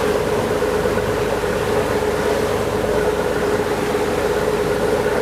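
A boat's engine running steadily with a constant hum, under an even wash of wind and water noise.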